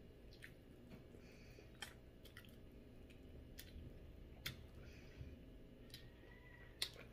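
Faint chewing of braised pork leg eaten by hand, with several soft, short clicks spread through.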